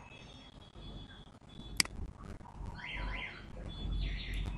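A single sharp computer mouse click about two seconds in, against a faint high warbling tone that sweeps up and down in the background.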